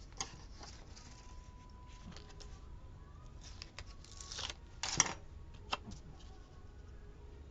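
Light paper rustling and small taps as a sticker sheet is handled and a sticker is placed on a planner page, with the loudest rustles around four and a half and five seconds in.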